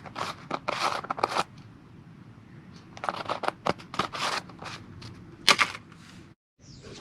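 Handling noise from outdoor kit: bursts of fabric rustling and scraping in two clusters, with one sharp click about five and a half seconds in, and the sound cutting out briefly near the end.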